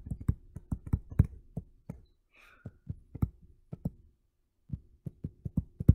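Stylus tapping and clicking on a tablet screen during handwriting: a quick, irregular run of sharp taps with a short pause a little after four seconds in.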